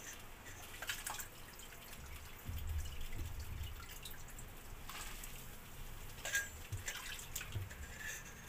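Watery tomato gravy boiling in an aluminium pot on a gas stove, its bubbles making scattered small pops and drips, with a low rumble for a moment near the middle.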